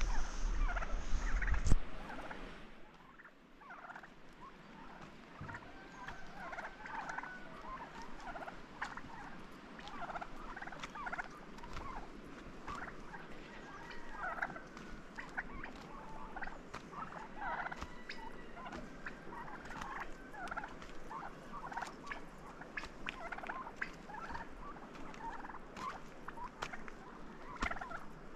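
A flock of turkeys calling with many short calls while they forage, with scattered faint ticks among them. A loud low rumble covers the first two seconds, then stops.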